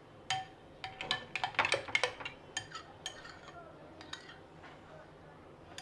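Metal spoon clinking against a glass bowl while stirring a thick yogurt chutney. The clinks come quickly in the first two seconds, thin out, and stop about four seconds in.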